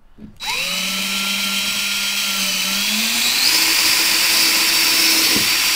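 DeWalt cordless drill running as it pre-drills a pilot hole through drywall into a wood stud. The motor whine starts about half a second in and steps up in pitch about halfway through as the drill speeds up.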